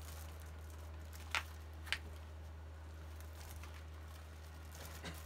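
Crinkling and rustling of a plastic-wrapped package being handled over a cardboard box, with two short sharp crackles close together between one and two seconds in, over a steady low hum.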